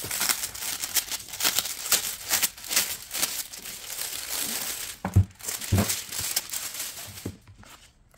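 Crinkling, rustling and tearing of photo-card packaging being opened by hand, dense and irregular, with two dull thuds about five and six seconds in; it dies down near the end.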